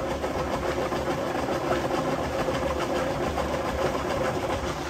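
Steady hum of the pump motor draining the paddy field, running evenly with one held tone.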